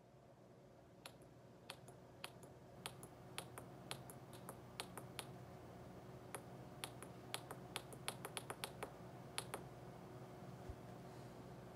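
Tactile push button with a round cap on a breadboard, pressed repeatedly by finger: about thirty faint, sharp clicks at an uneven pace, some in quick runs, stopping shortly before the end. Each press steps a seven-segment hex counter. A faint steady hum runs underneath.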